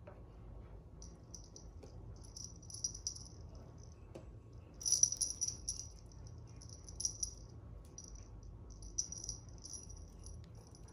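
Light metallic jingling in short, repeated bursts, like a small bell being shaken, loudest about five seconds in.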